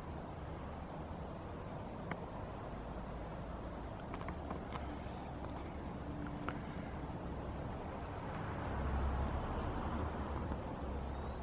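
Low rumble of distant road traffic, swelling about eight seconds in as a vehicle passes, with faint high-pitched chirping repeating steadily above it.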